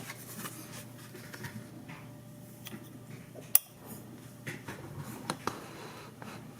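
Faint room tone with a few scattered small clicks and one sharp click about three and a half seconds in.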